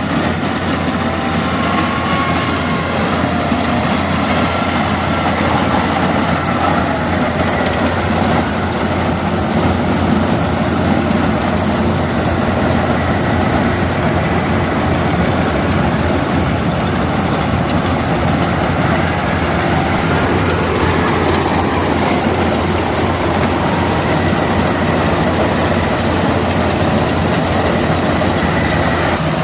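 Yanmar AW82V combine harvester's diesel engine running steadily while cutting rice.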